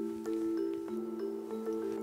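Background music: a light tune of held notes that step from one pitch to the next.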